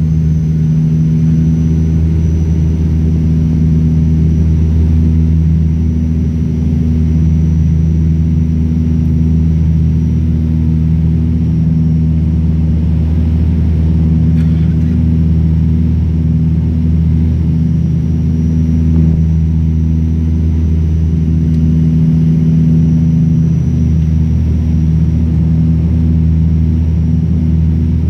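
Steady drone of an ATR 72-200's turboprop engines and propellers heard from inside the passenger cabin during the landing approach: a loud, even low hum made of several held tones, with a faint high whine above it.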